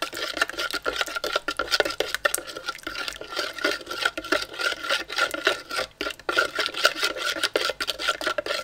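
Metal teaspoon stirring in a plastic measuring jug, a continuous rapid scraping and clinking against the bottom and sides, dissolving Himalayan salt in a little warm water to make brine.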